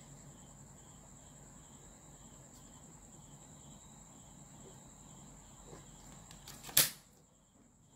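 Quiet background with a steady high whine and a faint, evenly repeating chirp. About seven seconds in there is a single sharp clack as the plastic ruler is lifted off the drafting paper and set down.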